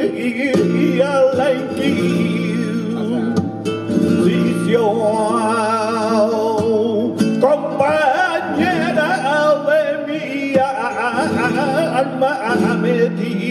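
Male flamenco cantaor singing a soleá in long, wavering melismatic lines, accompanied by a flamenco guitar playing soleá por arriba (in E).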